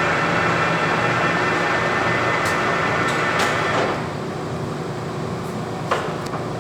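Clausing Colchester 17 x 60 inch lathe's geared headstock running steadily at 65 RPM, its gear noise dropping away about four seconds in as the spindle is slowed for the next speed. A few sharp clicks and one louder clunk come through, about six seconds in.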